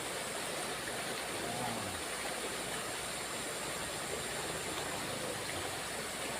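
Small river flowing, a steady even rush of water.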